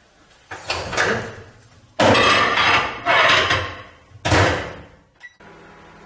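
Microwave oven door opened and a dinner plate set inside with clatters, then the door shut with a bang, followed by a short beep.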